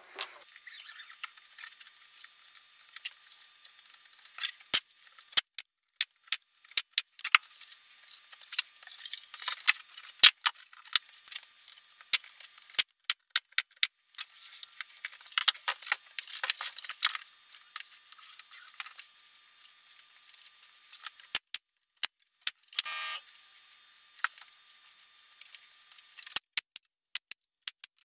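Pneumatic brad nailer firing nails into pine rail boards: many sharp clicks, singly and in quick runs, with a brief hiss of air about three-quarters of the way through.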